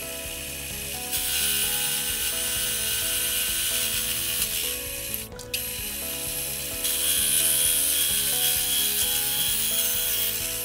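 Milling machine driving a coarse-toothed hole saw through thin aluminum and the tight-fitting wooden slug inside it, a steady high-pitched cutting noise. The cut stops briefly near the middle, then resumes and gets louder.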